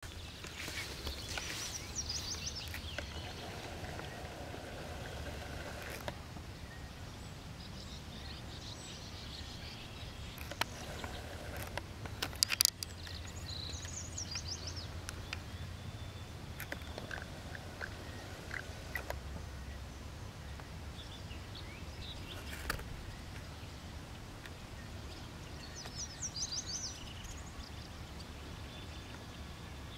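Outdoor yard ambience: small birds chirping now and then over a low, steady rumble. A few sharp clicks about twelve seconds in are the loudest sounds.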